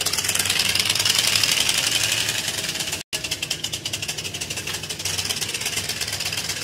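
Rapid, even clatter of a moving bicycle whose spokes strike something fixed to the frame, a trick that makes the ride sound like a motorbike engine. The clatter breaks off for a moment about three seconds in.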